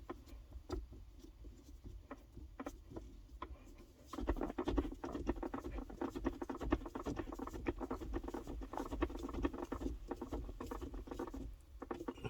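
Hard plastic car interior trim being handled and worked back into place: many small clicks, taps and scrapes, sparse at first and busier from about four seconds in until shortly before the end.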